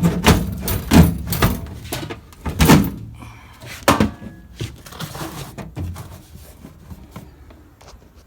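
Repeated knocks and clunks of a box being worked out of a toolbox cabinet, loudest in the first three seconds, then one sharp knock about four seconds in and a few quieter ones.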